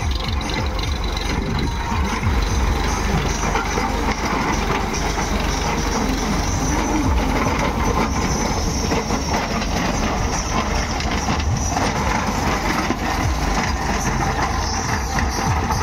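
Diesel tractor engine running steadily under load while pulling a rotary tiller, with the tiller's blades churning dry soil in a dense, continuous mechanical clatter.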